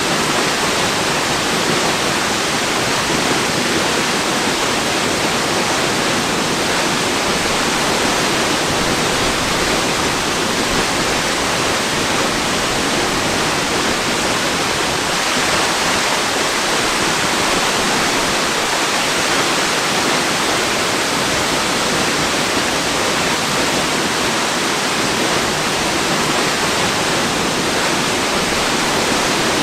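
Waterfall: a steady, unbroken rush of falling water, even hiss with little low end.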